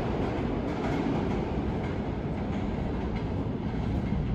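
New York City subway train moving along the track: a steady rumble, with a light clatter of wheels over rail joints.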